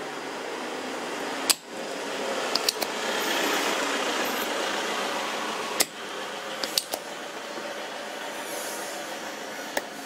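Desoldering work on a circuit board: a steady hiss, louder for a few seconds in the middle, broken by about seven sharp clicks.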